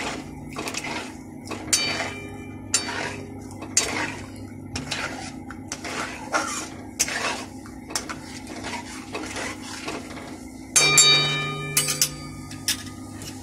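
Metal spatula scraping and clinking against a kadhai while stirring milk, sugar and ghee until the sugar dissolves, over a steady low hum. About eleven seconds in comes a louder ringing metal clang.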